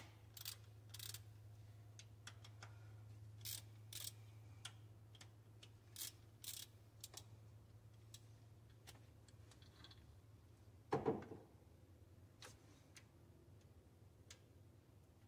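Hand tools on the oil pump bolts at the front of a 6.0 V8: quiet, scattered sharp metallic clicks and ticks, often in pairs, with a heavier clunk about eleven seconds in, over a faint steady hum.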